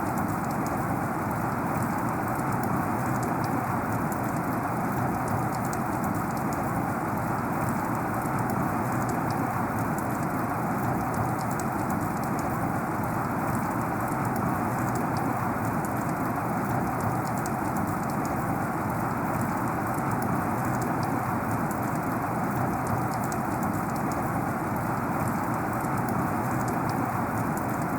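Heavy rain falling steadily: a dense, even hiss of rainfall with many small drop ticks on top.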